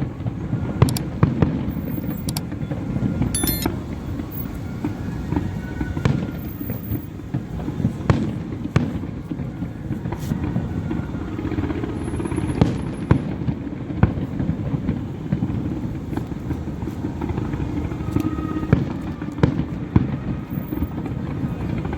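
Fireworks display: a continuous low rumble of bursts, broken by many sharp bangs throughout.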